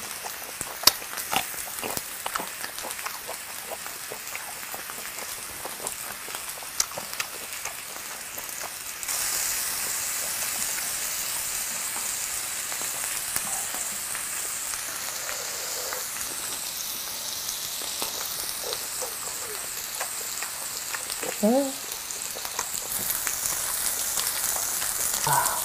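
Gopchang (beef intestines) and brisket sizzling on a grill, a steady frying hiss that grows louder about nine seconds in. A few sharp clicks come in the first couple of seconds.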